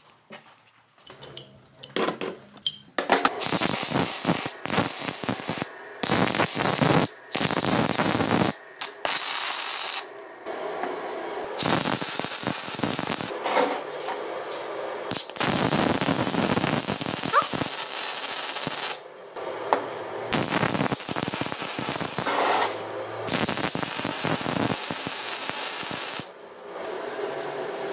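A few light clinks of steel nuts and bolts being handled, then a MIG welder's arc crackling in stretches of a few seconds with short breaks between them, as steel bearing housings are welded to their mounting plates.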